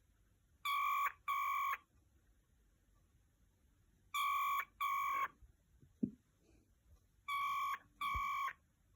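Cockatiel mimicking a telephone ringtone: short, steady, ring-like whistles in a double-ring rhythm, three pairs in all, each pair starting about three and a half seconds after the last.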